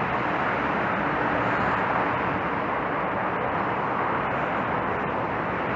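Steady road-traffic noise: a continuous rush of passing cars and their tyres.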